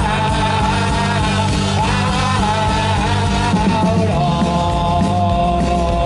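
A live rock band playing an instrumental passage with drums, electric and acoustic guitars, and a held melody line of long notes that step up and down in pitch.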